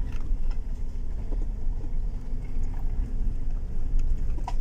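Low, steady rumble of a car and its tyres on a torn-up gravel road, heard from inside the cabin, with a few light clicks.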